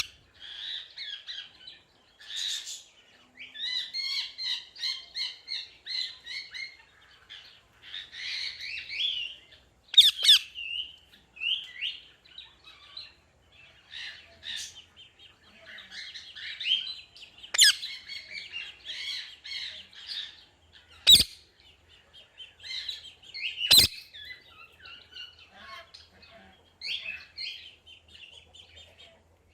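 Parrots chirping and chattering in quick repeated high calls, broken by a few sharp, loud squawks.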